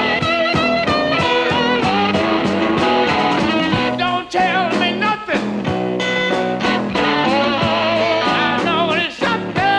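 Electric blues instrumental passage: a lead electric guitar plays wavering, sliding notes over a repeating rhythm-guitar figure and drums.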